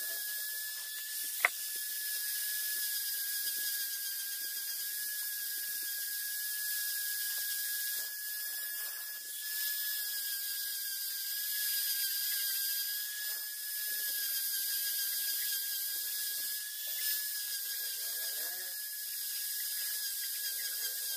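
Handheld rotary tool running at high speed with a thin cut-off disc working on a car gear shift knob: a steady high-pitched whine with a grinding hiss. A single sharp click stands out about a second and a half in.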